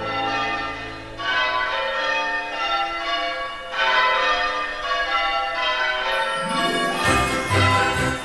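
Music soundtrack of bells ringing, each new stroke ringing on and overlapping the last. Near the end a rising sweep leads into a fuller section with a deep pulsing bass.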